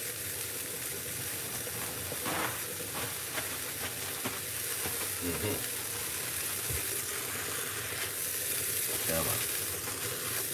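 Chicken soup boiling in a covered aluminium pot on an electric hot plate, giving a steady bubbling hiss, with a few faint short sounds about 2, 5 and 9 seconds in.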